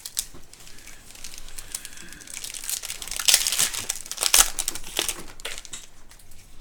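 Crinkly plastic trading-card pack wrapper being torn open and crumpled by hand, a dense crackling that grows loudest about halfway through.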